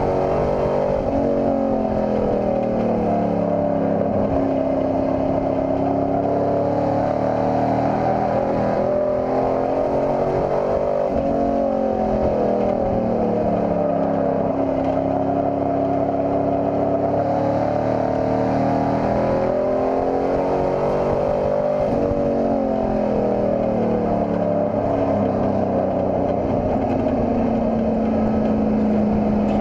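Race pickup truck's engine heard from inside the cab under racing load; its note falls off and climbs back about every ten seconds, three times, as it lifts for the turns and pulls down the straights of the oval.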